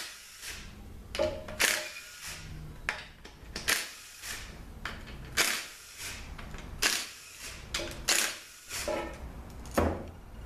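Cordless drill/driver spinning out the front pump bolts of a Ford AOD automatic transmission one after another, with sharp metallic clicks about every second and a half.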